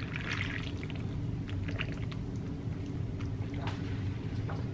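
Broth poured from a ladle into a ceramic bowl of udon, with a short splash in the first half-second and a few small clicks afterwards, over a steady low hum.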